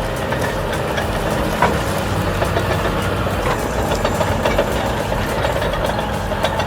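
Heavy diesel engine of a bulldozer towing a chopper roller, running steadily under load, with scattered short knocks and cracks.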